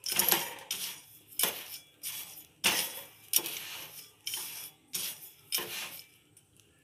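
Perforated steel ladle stirring black chickpeas through hot salt in a steel kadai: a steady run of gritty scrapes, about one and a half a second, stopping shortly before the end. The chana are dry-roasting in the salt.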